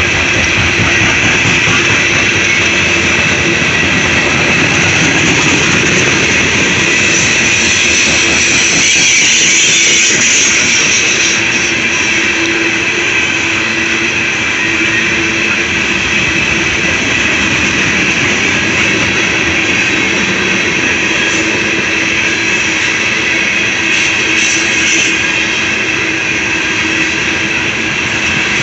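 Loaded coal cars of a long freight train rolling past, steel wheels on the rails making a loud, steady rumble with a constant high ringing tone over it.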